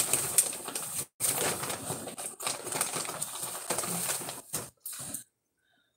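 Rustling and handling noise as hands sort through small jewelry items, in several stretches with brief gaps, stopping abruptly about five seconds in.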